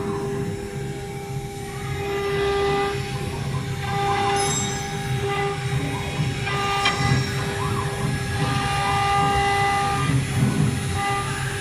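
CNC router spindle running at speed with a steady whine while a V-bit cutter carves lettering into a board, with the rougher noise of the cut beneath it.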